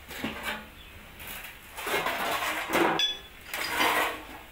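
Dented sheet-metal engine-hood panel of a Cat 320GC excavator being turned over on a steel plate: several scraping, rattling bursts as it slides and shifts, with one sharp metallic clink that rings briefly about three seconds in.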